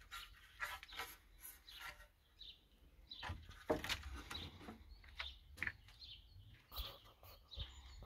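Faint outdoor ambience: birds chirping, with scattered short knocks and rustles.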